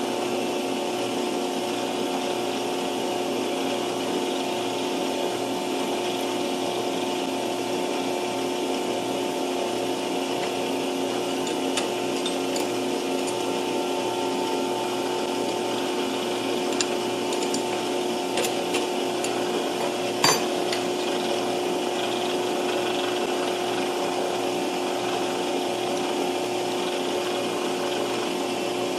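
Metal lathe running steadily with a constant hum from its motor and spindle, not yet cutting. A few light metallic clicks from about twelve seconds in, and one sharper knock about twenty seconds in, as the drill bit is handled and fitted.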